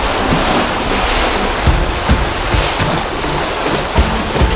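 Sea water rushing and surging past a sailing catamaran at sea, swelling about a second in and again midway, with wind buffeting the microphone in low thumps.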